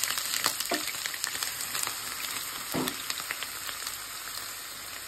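Sliced onions sizzling in hot oil in a pan, the sizzle slowly dying down as the oil cools around them, with a few light knocks.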